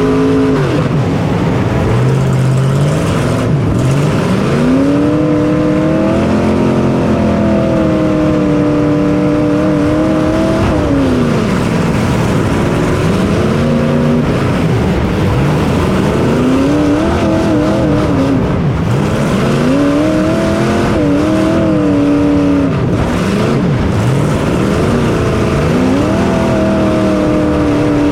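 A racing machine's engine heard close up from onboard, revving up and dropping back again and again. Its pitch climbs and falls about five times, once every few seconds, as the throttle is opened and closed.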